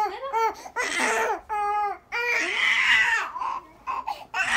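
A baby crying in several bouts of high-pitched wails, with short breaks between them.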